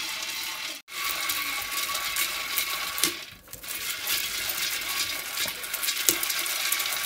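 Dry beans roasting in a clay pot, rattling and crackling as they are stirred with a bundle of sticks.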